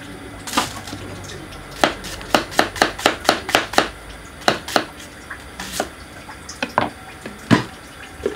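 Kitchen knife chopping an onion on a wooden cutting board: a quick run of about ten chops, then slower, scattered cuts, the loudest near the end.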